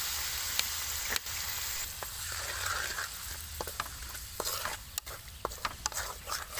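Sauce and chopped aromatics sizzling in a hot steel wok as they are stir-fried, the sizzle slowly dying down. From about halfway in, a wooden spatula scrapes and clacks against the wok.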